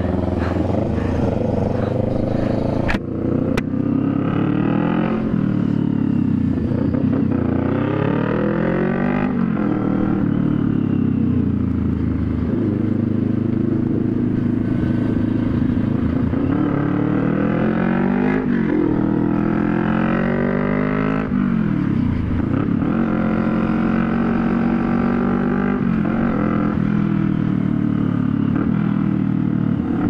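CFMoto 400NK's parallel-twin engine running through a new aftermarket exhaust pipe fitted without a resonator, very loud while riding. The revs rise and fall repeatedly as it pulls through the gears, dropping off sharply about twelve and twenty-two seconds in.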